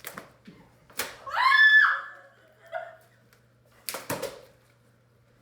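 A short, high-pitched shriek about a second in, just after a sharp smack, then a quick cluster of slaps around four seconds in, as slime is thrown during a slime fight.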